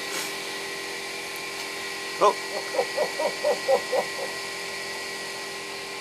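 Common hill myna giving a quick run of about eight short pitched calls, roughly four a second, starting about two seconds in, over a steady electric hum.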